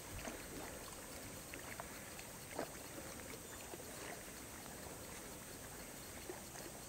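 Faint water sounds: light splashing and trickling with scattered small clicks, one slightly louder about two and a half seconds in.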